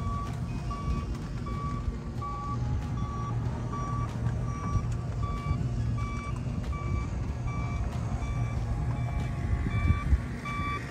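Snow-tubing conveyor-belt lift running with a steady low hum. Over it, a short electronic beep repeats evenly, a little faster than once a second.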